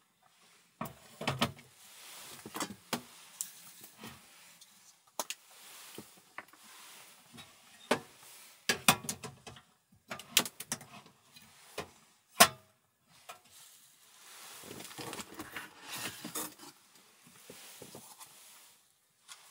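Handling sounds as a compact white tabletop stove is unboxed and set up on a wooden table: scattered clicks and knocks of plastic and metal parts, with a single sharp click about twelve seconds in. A stretch of rustling follows later on.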